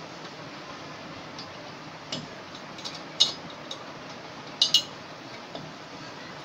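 Open-end spanner clicking and clinking against a steel nut on a motorcycle cylinder stud as the nut is worked down: a handful of sharp metallic clicks, the loudest about three seconds in and a quick pair near five seconds.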